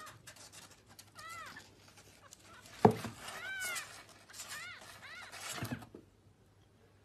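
Several short, high kitten mews that rise and fall in pitch, with one sharp thump near the middle that is the loudest sound, and light scratching and rustling in between.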